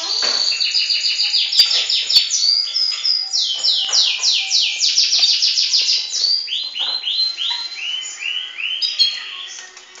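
Border canary singing a long song of rapid trills: runs of quickly repeated falling notes, then lower, slower phrases in the second half, trailing off near the end.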